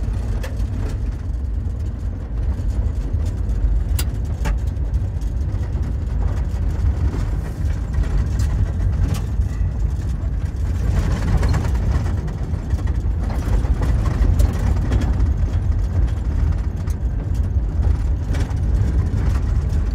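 Cabin noise of a vehicle driving on a gravel road: a steady low rumble of engine and tyres, with scattered sharp ticks.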